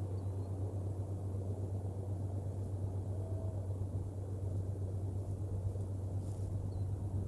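Steady low hum over a constant rumbling background picked up by an outdoor nest camera's microphone, with a couple of faint high chirps.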